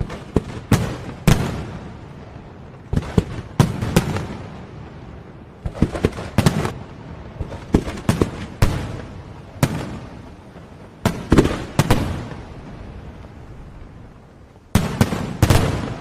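Aerial fireworks bursting: sharp bangs in quick clusters of two or three, coming every second or two, each cluster trailing off in a fading crackling hiss.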